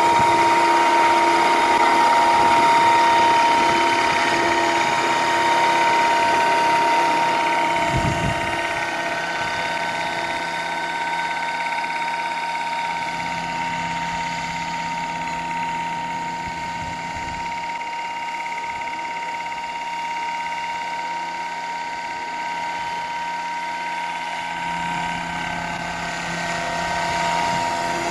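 Radio-controlled scale Bell UH-1 helicopter model running in flight, with a steady high whine from its power unit and rotor. It grows quieter in the middle as the model flies far across the field and louder again near the end as it comes back.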